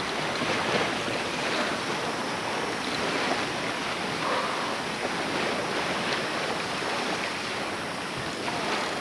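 Ocean surf washing steadily, an even rushing noise with no clear breaks.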